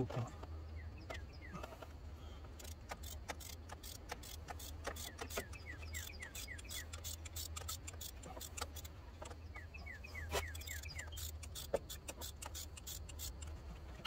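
Socket ratchet clicking in irregular runs while turning out the starter's 14 mm upper mounting bolt, with metal tools clinking. Short runs of quick high chirps come a few times, over a steady low hum.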